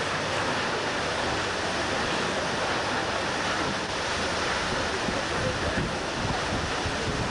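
A large waterfall pouring into the sea close by: a steady rushing noise, mixed with wind buffeting the microphone.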